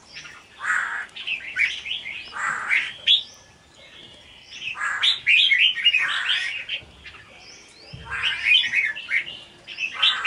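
Red-whiskered bulbuls singing in quick chattering phrases, about four bursts of one to two seconds each with short pauses between.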